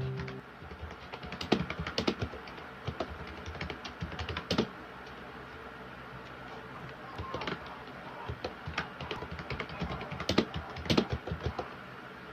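Rapid light clicks and taps in two runs, the first starting about half a second in, the second a little past halfway, with a pause between, over a faint steady hiss.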